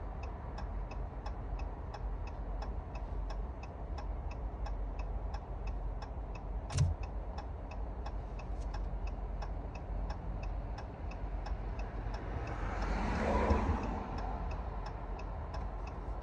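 A car's turn-signal or hazard-light tick repeating evenly, two or three ticks a second, over a low steady rumble. There is a single knock about seven seconds in and a short swell of louder sound about two-thirds of the way through.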